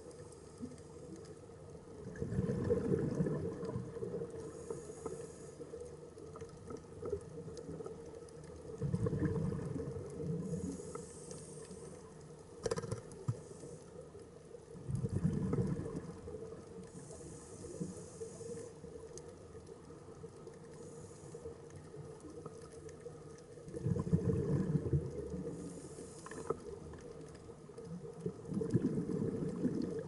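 A scuba diver breathing through a regulator underwater: five bursts of exhaled bubbles rumbling and crackling, several seconds apart, with a soft hiss of inhalation between them.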